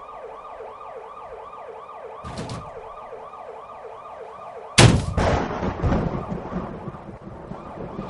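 Electronic flood-warning siren wailing in a rapid whooping pattern, about three cycles a second, sounding the village's flood alert. A short knock comes about two seconds in, and a sudden loud bang with a noisy rumble after it breaks in about five seconds in.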